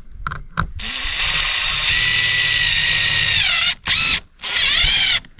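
Aerosol wasp-spray can hissing: one long spray of about three seconds with a whistling tone that dips near its end, then two short bursts.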